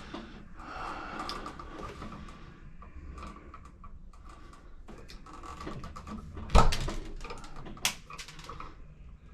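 Wire strippers working on the outlet's electrical wires: faint scraping and handling noise, with two sharp clicks, the louder about six and a half seconds in and the other a second or so later.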